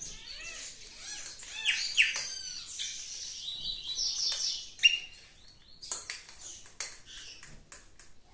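Birds chirping in quick, repeated calls that rise and fall in pitch, over the clinks of a utensil stirring batter in a bowl. One sharp clink, about five seconds in, is the loudest sound.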